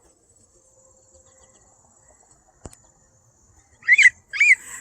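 Faint steady high-pitched insect buzz, with a single sharp click about two and a half seconds in and two short rising-and-falling chirps near the end.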